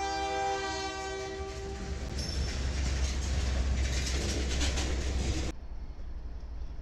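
Diesel freight locomotive's air horn sounding a chord of several tones that ends about two seconds in, followed by the rumble and clatter of covered hopper cars rolling past on the rails. Near the end it cuts to a quieter, more distant train.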